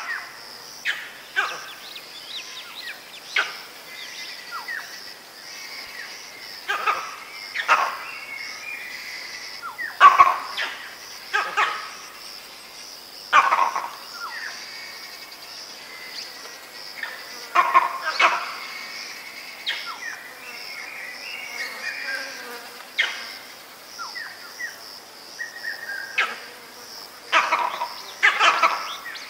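A vervet monkey giving leopard alarm calls, mostly from one monkey, signalling that a leopard is near. The short, loud calls come irregularly every second or few seconds, some in quick pairs, over a steady high-pitched insect drone.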